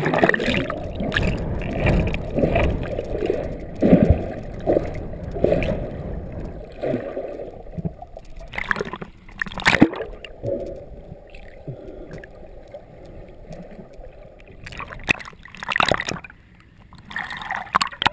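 Sea water sloshing and gurgling around a camera held at the ocean surface. The sound goes dull and muffled while it is under, and there are sharp splashes a few times as it breaks through the surface.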